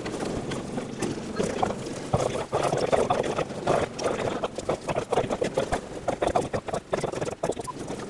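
Hubbub of many people talking at once across a large hall, no single voice standing out, with frequent small clicks and knocks running through it.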